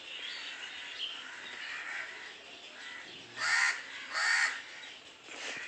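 A crow cawing twice, two harsh calls close together, over faint steady chirping of small birds.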